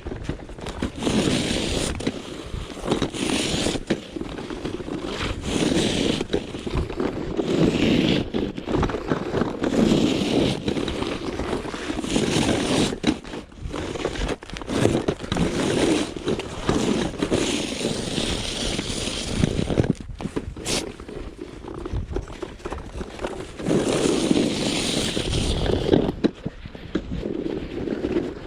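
Snow shovel scraping and pushing snow across pavement in repeated strokes, about one every one to two seconds.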